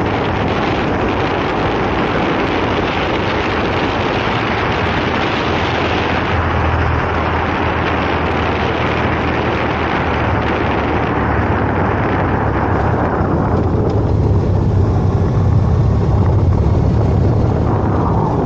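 Wind buffeting the camera microphone on a moving motorcycle, over the low, steady drone of its engine. Past the middle the wind hiss eases and the engine drone comes forward.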